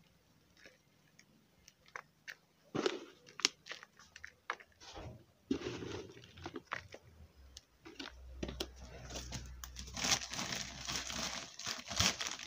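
Potting soil crunching and rustling in a plastic bucket as it is pressed down by hand and poured in from a second plastic bucket: scattered short crunches at first, then a denser, steadier rustle in the second half.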